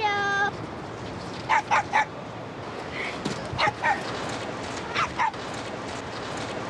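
A small dog yapping in quick pairs of short, high yelps, three pairs a second or so apart, while searching for a ball.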